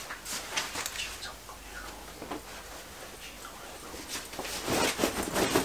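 Fabric rustling as a pair of overalls is handled and pulled on, with scattered light rustles that grow denser and louder near the end.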